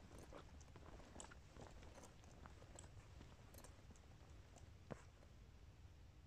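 Near silence, with faint scattered clicks and crackles and one sharper click about five seconds in.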